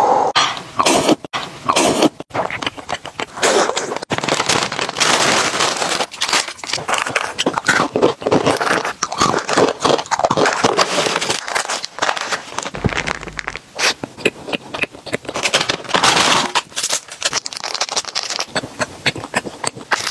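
Plastic and foil snack packaging crinkling and rustling as bags and wrappers are handled and torn open, with many sharp crackles and clicks.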